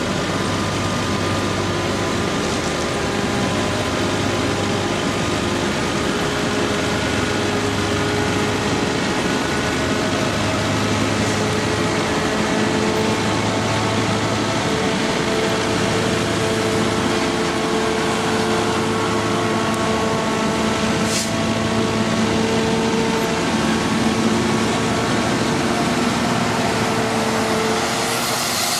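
Cotton module truck running steadily as it loads a cotton module onto its tilted bed, several steady tones slowly shifting in pitch. The sound changes abruptly near the end.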